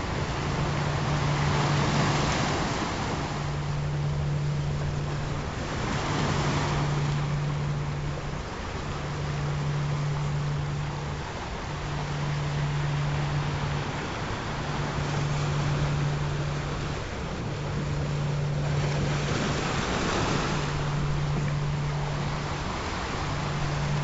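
Recorded ocean surf, waves washing in and swelling every few seconds, under a steady low tone from a binaural-beat frequency track that drops out briefly about every two seconds.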